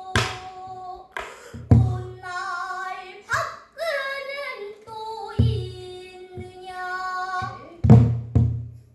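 A child singing pansori, the voice sliding and wavering between held notes, accompanied by sharp strokes of a buk barrel drum every second or two.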